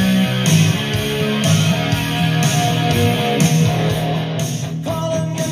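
Rock song with strummed electric guitar and a steady beat, played loud through a homemade Bluetooth ammo-can speaker with marine speakers. Near the end the beat stops and a held note rings on.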